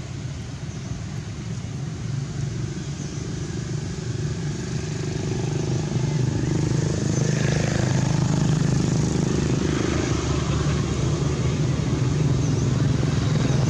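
A motor vehicle engine running steadily as a low rumble, getting louder about six seconds in.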